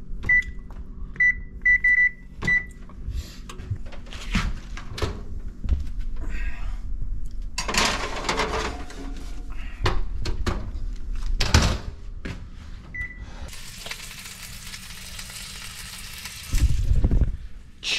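Kitchen oven's control panel beeping as it is set to broil: several short high beeps in the first few seconds and one more later. Around them, knocks and clatter of pans and handling, a few seconds of steady hiss, and a heavy low thump near the end.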